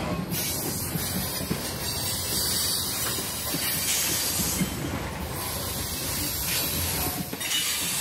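Train rolling past on the tracks: a steady rumble of wheels on rail mixed with a hissing noise, with wind buffeting the microphone.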